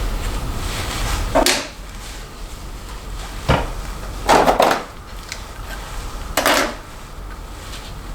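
Plastic hair rollers being handled while hair is wound onto them: four short rustling, clattering bursts, the longest about halfway through, over a steady low hum.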